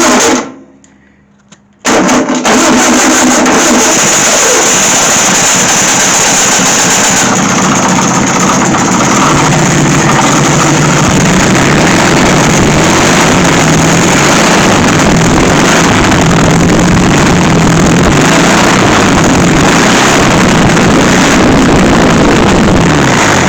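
Air-cooled VW Beetle flat-four engine on a bare chassis, choked and started by jumping the starter. A short burst right at the start, then the engine catches about two seconds in and runs steadily and loudly. It dies near the end as the gas poured into the carburetor bowl runs out, with no fuel line connected.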